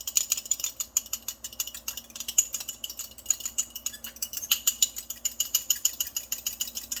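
An egg being whisked in a bowl for egg wash: the utensil clicks against the bowl in a fast, even rhythm of several strokes a second, then stops suddenly at the end.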